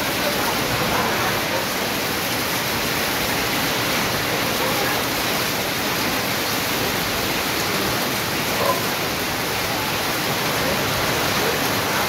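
Heavy rain falling steadily on corrugated metal roofing, with water pouring off the roof edge onto the ground: a dense, even downpour.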